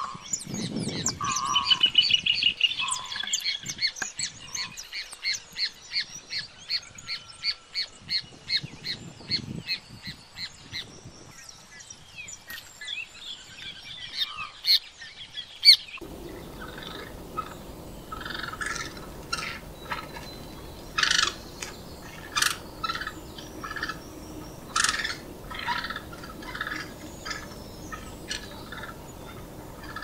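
Wild birds calling. First a fast series of high repeated notes, about two a second, fading out about eleven seconds in. Then, after an abrupt change, scattered short chirps from several birds over a steady hiss.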